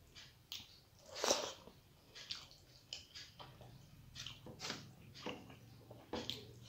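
Close-up eating sounds: a person chewing rice and vegetable curry with wet mouth clicks and smacks, and fingers mixing rice on a steel plate. The clicks come irregularly, with one louder smack about a second in.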